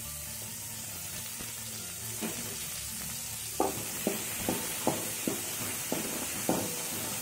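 Onions, boiled green peas and curry leaves sizzling softly in oil in a pan. About halfway through a steel ladle starts stirring them, scraping and tapping against the pan roughly twice a second.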